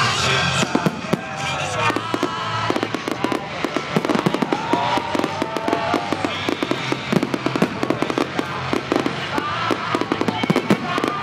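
Fireworks display: many sharp bangs and crackles in rapid, irregular succession, with music playing underneath.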